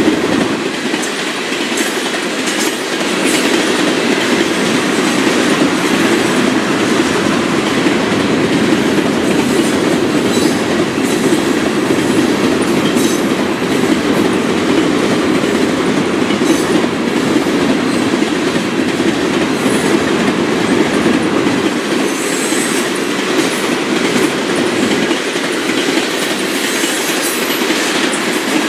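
Freight cars of a Florida East Coast Railway train rolling past steadily, with wheels clicking over the rail joints.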